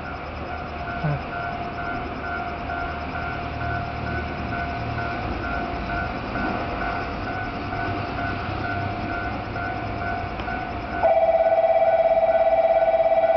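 A steady electronic warning tone rings over a low, fading rumble of an approaching train. About eleven seconds in, a much louder, rapidly pulsing warning signal takes over.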